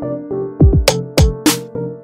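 Electronic background music with a drum-machine beat: deep kick drums and sharp snare hits over steady synthesizer chords.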